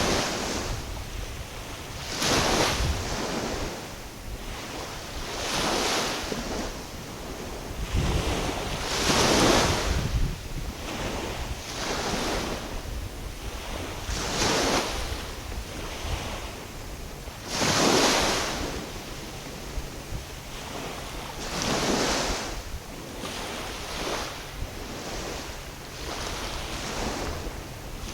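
Small waves washing in and breaking every few seconds, each one swelling into a rush and falling away, with wind rumbling on the microphone.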